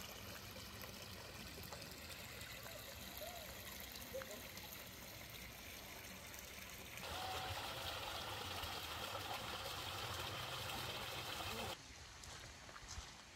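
Faint running water trickling. It grows louder about seven seconds in and changes abruptly near the end.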